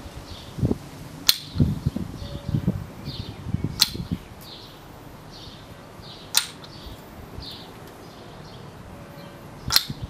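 Maple kendama's wooden ball clacking sharply onto the cups and spike during tricks: four crisp wooden clacks a few seconds apart, about a second in, near four seconds, about six seconds in and near the end, with softer knocks in the first few seconds.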